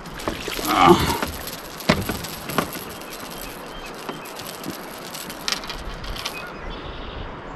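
A few sharp knocks and clatters on a boat over a steady hiss, with a brief voice sound about a second in.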